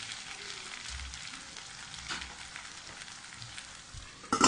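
Cornflour-coated chicken pieces sizzling steadily in shallow oil in a non-stick frying pan, with a short loud clatter of the pan lid being handled near the end.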